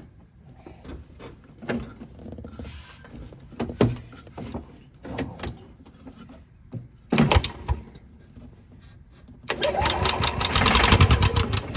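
A 1990 Club Car gas golf cart's small engine is started from the accelerator pedal. A short burst of cranking comes about seven seconds in. About two seconds later it turns over again, catches and runs loud and fast, with a rapid pulsing beat. Light clicks and knocks come before.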